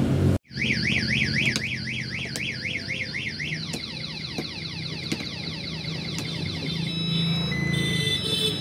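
Electronic vehicle anti-theft alarm siren cycling through its tones: a fast warble about three times a second, then quicker repeated falling sweeps, then short steady beeps near the end.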